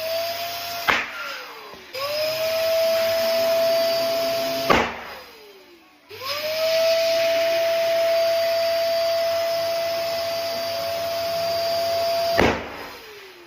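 An electric balloon pump runs with a steady hiss and a whine that rises and then holds as each balloon fills. Balloons burst with a sharp bang three times, each bang followed by a falling tone.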